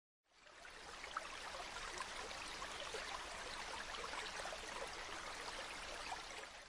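Running water trickling and splashing, like a small stream, fading in at the start and stopping abruptly at the end.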